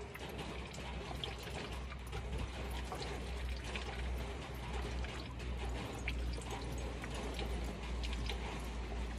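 A pack of Akbash dogs eating, with scattered small crunching and chewing clicks over a steady hiss and a low rumble.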